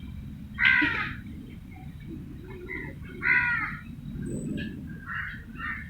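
Harsh animal calls: two loud calls about a second in and about three seconds in, then fainter, shorter calls near the end, over a steady low rumble.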